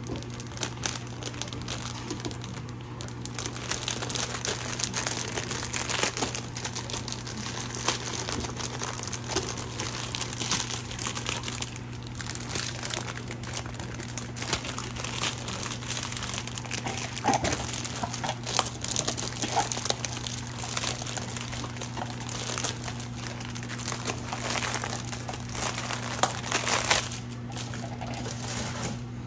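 Crinkly packaging being handled, crinkling and rustling almost without pause, with a few louder crackles, over a low steady hum.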